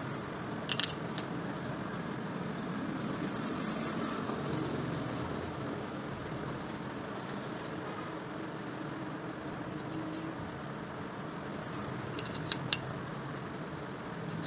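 Light metallic clinks from a motorcycle drum-brake backing plate and its brake cam being handled and turned: a few about a second in and two sharp ones near the end, over a steady background hiss.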